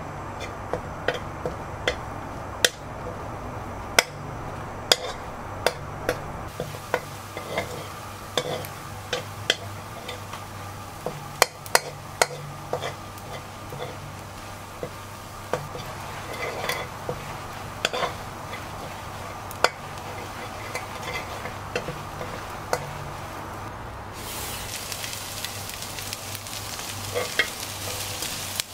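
A spatula scraping and knocking against a non-stick wok as food stir-fries in oil with a light sizzle, over a steady low hum. About 24 seconds in, the sizzle turns much louder and hissier, with sliced shallots frying in the pan.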